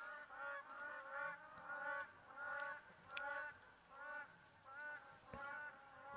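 Birds giving short honking calls over and over, a few a second, several calling at once.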